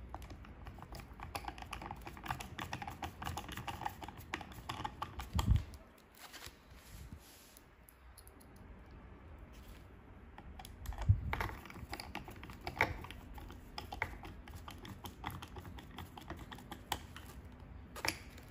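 Small hand screwdriver turning M2.6 screws into a tail servo mount: a run of light irregular clicks and scrapes as the bit works in the screw heads. The run is broken by two dull knocks, about five and a half and eleven seconds in, with a quieter stretch between them.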